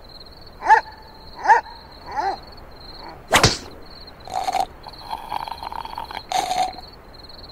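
Cartoon mosquito sound effects: a thin high whine comes and goes throughout, with three short squeaky chirps in the first couple of seconds. A sharp whip-like crack follows a little after three seconds, then two brief hissy puffs.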